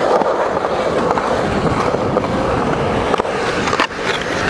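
Skateboard wheels rolling over smooth concrete, a steady rumble, with a couple of sharp clacks near the end.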